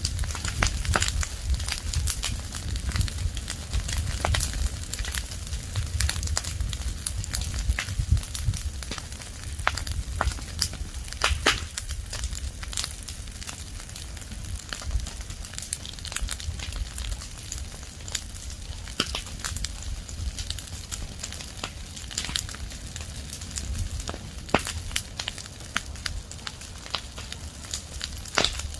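Open fire of dry leaves and branches burning, crackling with irregular sharp snaps and pops over a steady low rumble.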